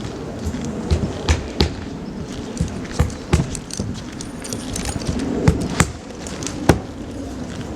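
Irregular sharp knocks on a wooden roof deck, about eight in all, with some in quick pairs, as base paper underlayment is nailed down.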